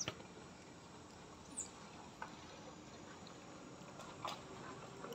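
Faint background with a few soft clicks and taps from a baby macaque chewing and handling a dry twig, and one short high chirp about a second and a half in.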